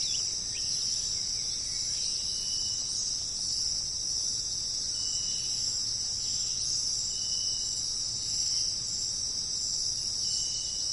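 Steady, high-pitched insect chorus, crickets chirring without a break. A short high note recurs about every two and a half seconds over it.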